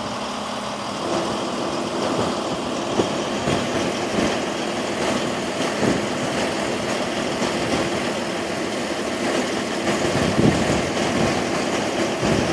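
Diesel semi-truck engine idling steadily, under a rushing noise that is probably wind.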